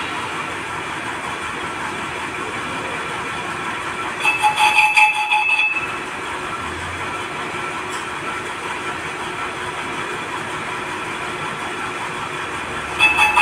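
Metal-turning lathe running as its cutting tool turns down the face of a paper plate die to reduce the depth of its dip: a steady machine noise with faint steady whines. The cut gets louder with a ringing squeal for about a second and a half, around four seconds in and again near the end.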